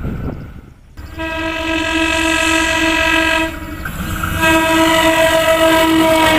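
Train horn sounding a long blast from about a second in, easing off briefly around three and a half seconds in and then sounding again, over the low rumble of the train.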